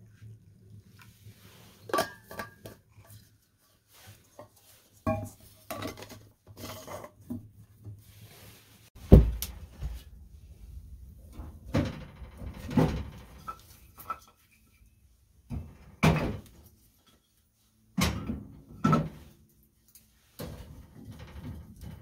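Irregular knocks, clunks and a few short clinks of wood and metal being handled as split firewood is loaded into a small cast-iron wood stove. The loudest thud comes about nine seconds in.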